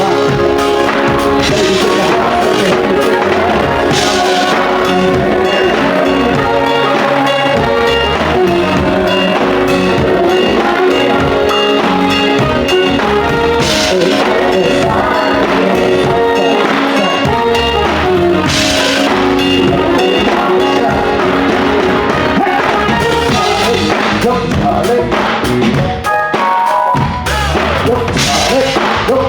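Band music with a drum kit to the fore: kick drum and drum hits under sustained chords, with a cymbal crash a few times.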